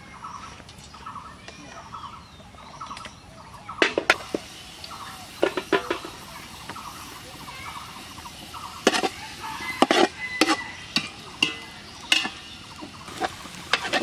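A metal ladle knocks and scrapes against a large aluminium pot as sliced onions are stirred in oil, in sharp clatters from about four seconds in. Before that, a bird calls in short repeated notes.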